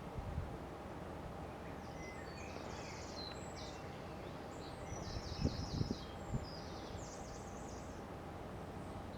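A small songbird twitters in quick, high phrases over steady outdoor background noise, with a few low thumps about five to six seconds in.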